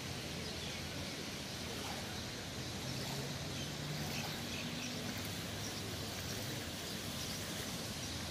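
Steady outdoor background noise over still floodwater, with faint bird chirps and a faint low hum that comes up about three to five seconds in.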